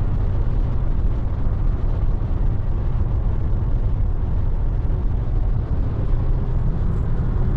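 Steady low rumble of a car driving at speed on the motorway: engine and road noise.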